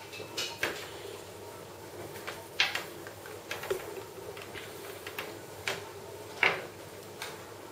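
Light, scattered clicks and knocks of hands handling a laptop and its surroundings on a table, with three sharper knocks a few seconds apart.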